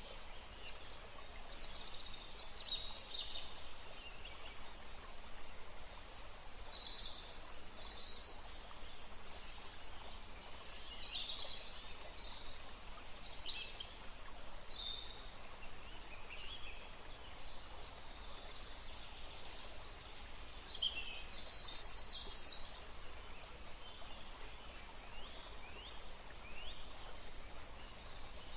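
Small birds chirping and calling in scattered bursts over a steady hiss of gently flowing river water.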